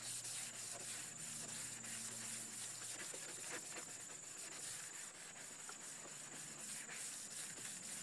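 Fine-grit sanding sponge scrubbing back and forth by hand over a wet plastic headlight lens, a faint steady rasping. It is wet sanding off the lens's yellowed outer layer.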